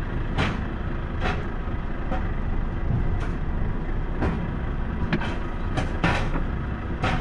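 Semi-truck cab rumble as the truck creeps along the flatcars of a Rola rolling-highway train, with sharp knocks about once a second as it rolls over the wagon deck.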